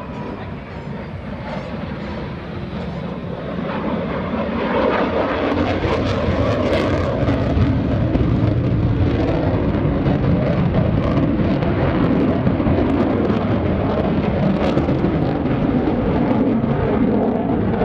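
Jet noise from an F-35C Lightning II's single F135 turbofan engine. It grows louder about four seconds in and then stays loud and steady.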